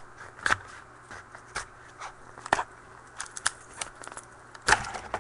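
A sealed box of trading cards being cut and torn open with scissors: a string of separate crackles and clicks of plastic wrap and cardboard, the loudest near the end.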